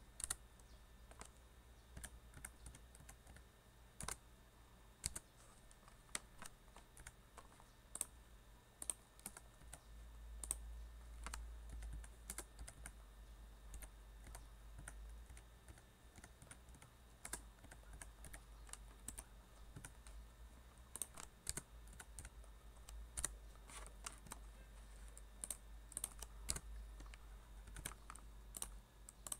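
Faint typing on a computer keyboard: irregular keystrokes in short runs and single taps, over a low steady hum.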